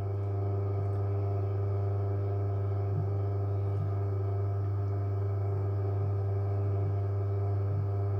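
Electric pottery wheel's motor running with a steady, even hum.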